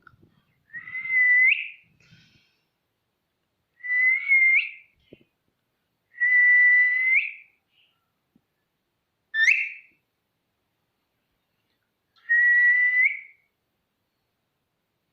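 Ringneck parakeet whistling: five separate whistles spaced a few seconds apart, each up to about a second long, most holding a level tone that flicks sharply upward at the end; the fourth is a short quick upward sweep.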